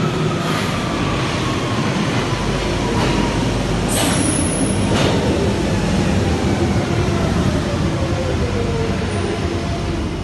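Central line 1992-stock tube train running into the station and slowing, its motors' whine falling steadily in pitch over a loud rumble of wheels on rail. A couple of sharp clacks come about four and five seconds in.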